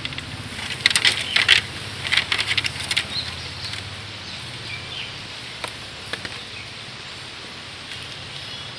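Fresh-cut grass crackling and rustling against a wire-mesh rabbit hutch as it is stuffed in. Two short bursts of crisp clicks in the first three seconds, then a few scattered clicks.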